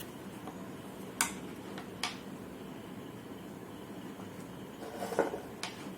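Glue bottle and container being handled while gum (clear glue) is poured: a few sharp light clicks, about a second and two seconds in and again near the end, with a brief squeak just before the last click, over a steady faint hum.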